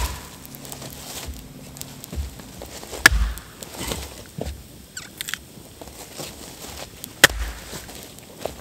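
Axe chopping into a log: two sharp strikes about four seconds apart, with a campfire crackling between them.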